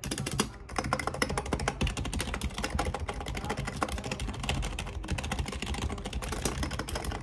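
Computer keyboard being typed on rapidly, a dense stream of key clicks, many a second, with a brief pause about half a second in. The keys are right in front of the microphone.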